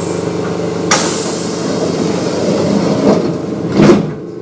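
Kintetsu 9200 series train's doors closing at a station stop. There is a sharp hiss about a second in, then the doors bang shut just before the end, after which the background noise drops.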